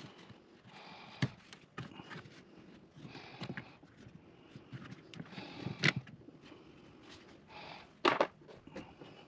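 Hand work on the plastic cabin air filter housings under the cowl: sharp plastic clicks and knocks, with a louder knock about six seconds in and another about eight seconds in, between recurring scraping and rustling about a second long.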